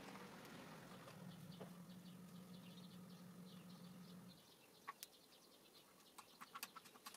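Near silence: faint room tone with a low steady hum that stops about four seconds in, faint high chirping, and a few light clicks near the end.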